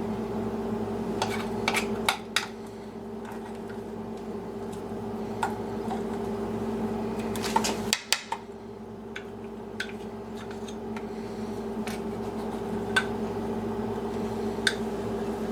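Spoon or utensil clinking and knocking against a bowl or pan while cornbread batter is mixed and put into its pan, in scattered clicks with a cluster near the start and another about halfway. A steady kitchen appliance hum runs underneath.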